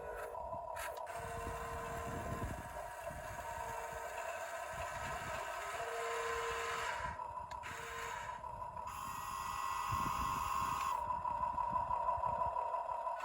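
Electric motors of radio-controlled construction models whining steadily, with a second short motor note switching on and off several times.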